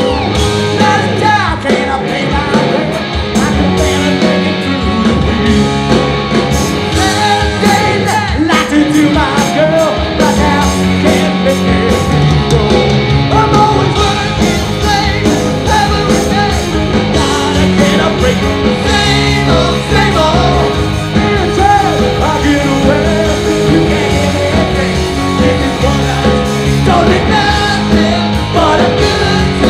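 Live hard rock band playing: electric guitar, bass and drums with a male lead singer, at full volume.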